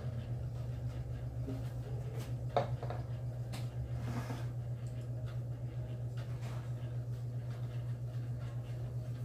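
A steady low hum, with a few light knocks and clicks of a glass and dishes on the table as food is served by hand; the sharpest knock comes a little over two seconds in.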